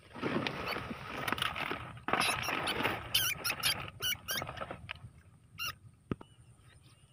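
Field rats caught in wire cage traps give a run of sharp, wavering squeaks as the cages are handled, after a couple of seconds of dry rice stubble rustling. A single knock of a wire cage comes near the end.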